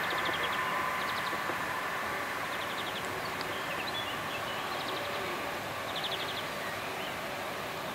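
Distant jet engine noise from a Boeing 787-8 rolling out on the runway after landing: a steady rushing hum that slowly fades, with a faint whine dying away about a second in. A small bird gives short rapid trills over it, about five times.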